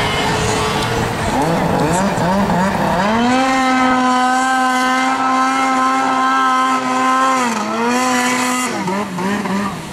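2007 Ski-Doo MX Z 800's two-stroke twin engine revving up and down. About three seconds in it climbs to a steady high pitch, held at high revs for about four and a half seconds, then drops back and goes on blipping up and down.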